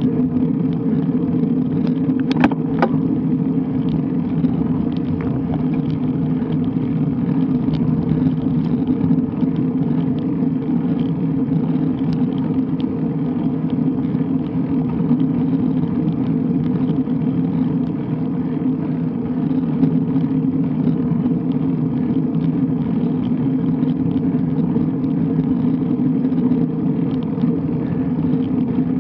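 Steady road rumble and wind on a road bike's action camera while riding, with a few sharp clicks about two and a half seconds in.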